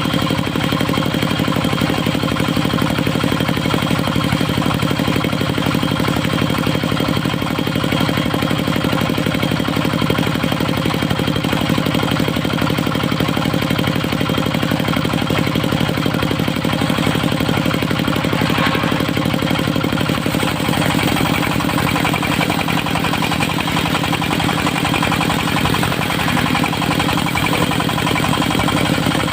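Engine of a portable circular-saw sawmill running at a steady speed.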